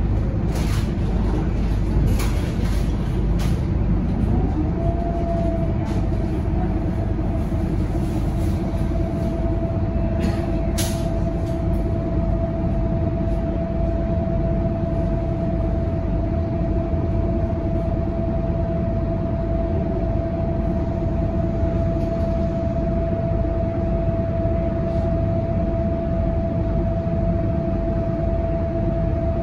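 Scania K230UB city bus heard from inside the cabin while standing still: its five-cylinder diesel engine idles with a steady low rumble and a constant high whine. A few brief hisses come in the first twelve seconds.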